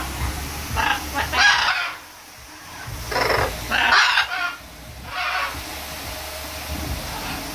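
Macaw giving a series of about five short, rough calls, in two close pairs with a last one near the end, over a steady low hum.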